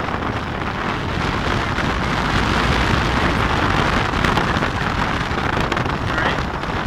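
Steady rush of wind over the microphone from riding in the open bed of a moving pickup truck, with the truck's road noise underneath.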